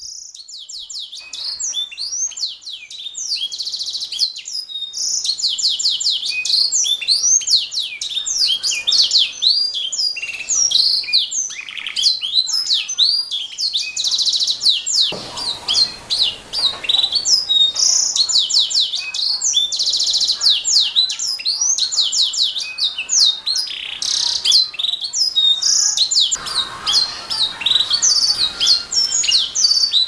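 Domestic canary singing a long, fast, high-pitched song of rapid repeated notes and rolling trills, almost without pause. The song starts right away and grows louder over the first couple of seconds.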